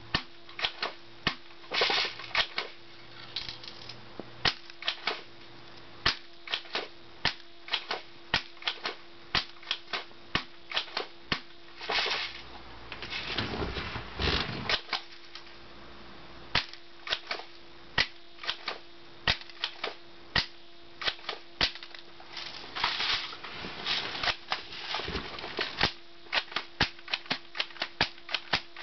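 Airsoft shotgun shooting a plastic DVD case over and over: a run of sharp snapping shots and pellet hits, a few a second, broken by several longer rattling stretches. A faint steady hum runs underneath.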